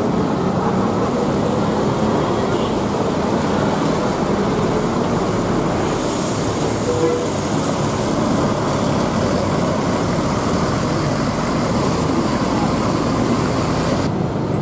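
Diesel engine of a Mercedes-Benz OH1626 coach running as the bus pulls slowly away, a steady low engine drone with a high hiss lasting about two seconds, a little after six seconds in.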